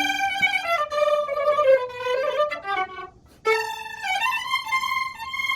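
Violin bowed in a melodic line of held notes, with a short break about three seconds in before the playing resumes.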